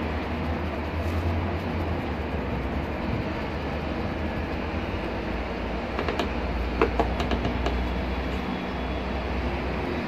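A plastic squeeze bottle of hair-dye cream is pressed and squeezed to empty it into a plastic mixing tub. It gives a few short clicks about six to seven and a half seconds in, over a steady low hum.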